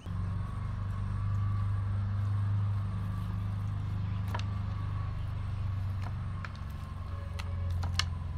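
A steady low engine hum, like a motor running close by, cuts in suddenly at the start and is the loudest sound. A few sharp clicks of a kitchen knife striking a plastic cutting board as raw beef is cut come over it, one about halfway and two close together near the end.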